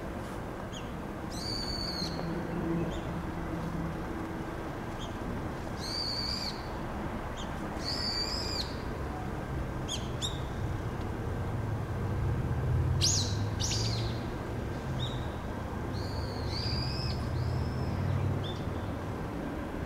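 Bird calling: short, high, shrill calls repeated every second or few, with a couple of sharper chip notes about halfway through, over a low steady background rumble.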